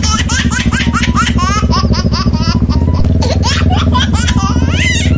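High-pitched laughing, a quick run of short rising "ha" sounds about five a second, over the steady low running of a Kawasaki Ninja 650's parallel-twin engine.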